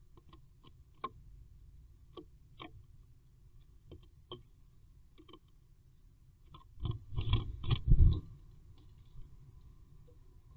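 A great tit moving about inside a wooden nest box: scattered sharp clicks and taps on the wood. About seven seconds in comes a louder flurry of scrabbling taps and dull thumps as the bird leaves through the entrance hole.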